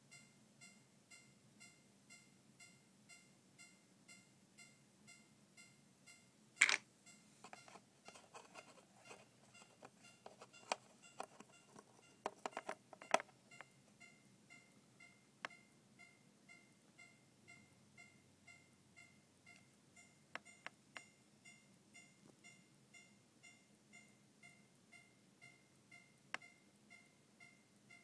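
ATtiny10-based electronic railroad-crossing alarm generator sounding a crossing-bell tone: a steady, evenly repeating electronic ding, a bit under two a second. A sharp click about a quarter of the way in is followed by a scatter of clicks and knocks over the next several seconds, with a few more later.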